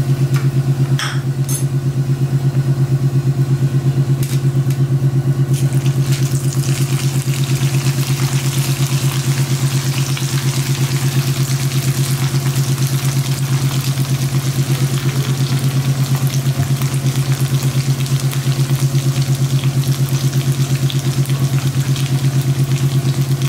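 Marinated chicken pieces deep-frying in hot oil in a kadai: a sizzle that grows fuller from about six seconds in as the pieces go into the oil, with a few light clicks before that. Under it, and louder, runs a steady low mechanical hum with a rapid pulse.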